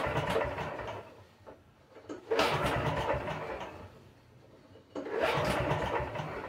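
Recoil pull-starter cranking the 19 hp Generac overhead-valve engine of a 10,000-watt generator three times: at the start, about two seconds in, and about five seconds in. The engine turns over easily without firing, because its run switch is still off.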